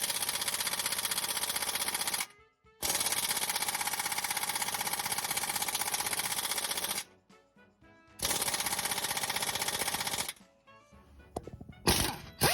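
Power tool with a fast hammering rattle, run in three bursts of about two to four seconds each that start and stop sharply.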